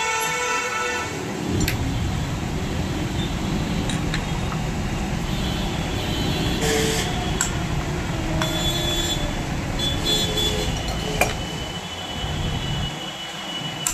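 Low rumble of a heavy vehicle passing, building about a second and a half in and fading near the end, with a few light clicks over it.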